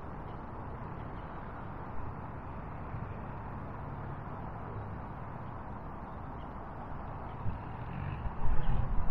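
Steady low outdoor rumble with a few faint bird chirps over it. A louder, low buffeting rumble swells up near the end.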